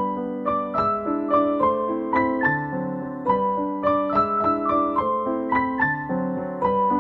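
Background keyboard music: a gentle melody of struck notes, several a second, over sustained lower notes.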